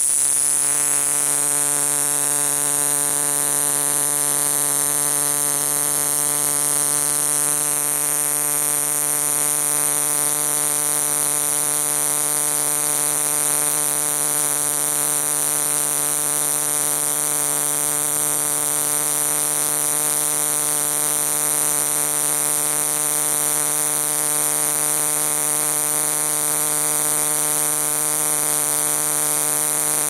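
A cicada singing at close range: one loud, continuous high-pitched buzz held steady without a break.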